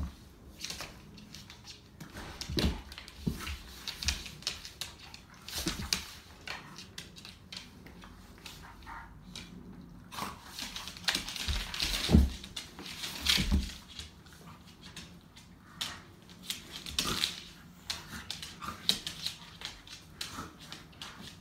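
Two dogs play-fighting, a large yellow dog and a small scruffy terrier-type dog: irregular short dog vocal noises and scuffling on a hardwood floor. A few heavier thumps, the loudest about twelve seconds in.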